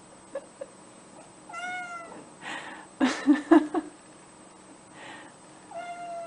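A cat meows twice, short calls about four seconds apart. A louder cluster of short sounds comes about three seconds in.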